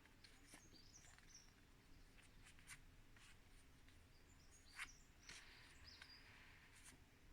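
Near silence: quiet room tone with a few faint soft clicks and some faint short high chirps.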